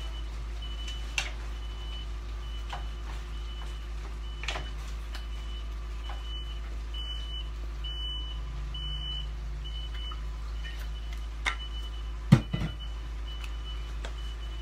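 A work vehicle's reversing alarm beeping, one high steady beep repeating a little more than once a second. There is a single loud thump near the end.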